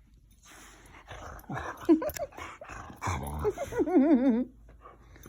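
Husky-mix dog vocalizing in short grumbling and yelping sounds, then a wavering, up-and-down call about four seconds in.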